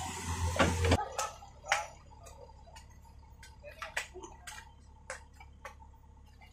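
A mini excavator's diesel engine idles with a low steady hum, louder for about the first second and then quieter. Irregular sharp clicks and taps come over it, roughly one every half second.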